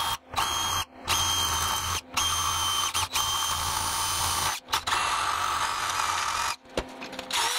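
A hole saw in a drill cutting through the brass radiator bottom tank, with a steady grinding and a faint high whine. It comes in several short runs broken by brief gaps.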